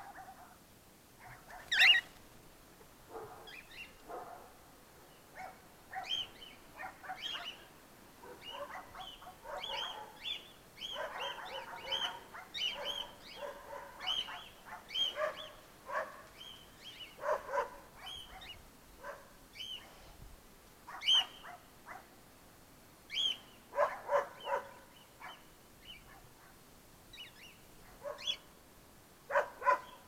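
Cockatiels calling: many short chirps and screeching calls in irregular bursts, the loudest about two seconds in.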